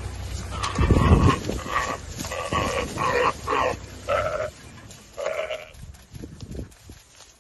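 Antelope caught by a cheetah giving a series of about seven short bleating distress calls, stopping about six seconds in. A low rumble is heard under the first second or so.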